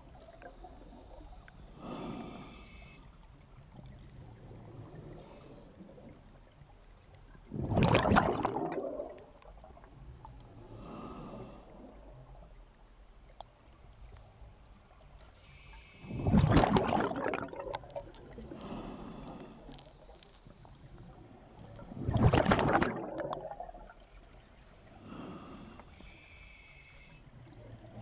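Scuba diver breathing through a regulator underwater: a short, softer hiss of each inhale through the regulator, followed a few seconds later by a loud rush of exhaled bubbles, three full breaths, with a fourth exhale starting at the very end.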